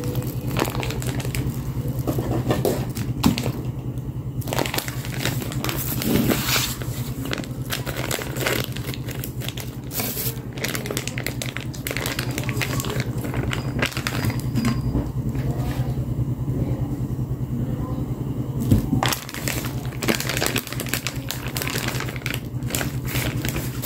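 Plastic packaging crinkling and rustling in irregular crackles as raw sausages are handled and squeezed out of a plastic bag, over a steady low hum.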